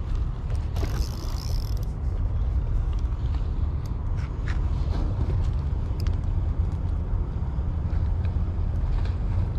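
A spinning reel being cranked to wind in a hooked fish, under a steady low rumble, with a brief hiss about a second in.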